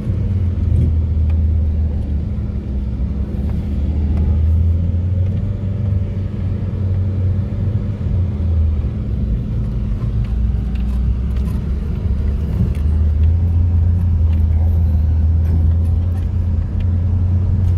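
A vehicle's engine running steadily as it drives, a low, even drone with road rumble.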